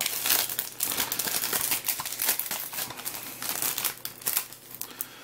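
Plastic shrink-wrap film crinkling and crackling as it is peeled and handled off a Blu-ray case; the crackling thins out near the end.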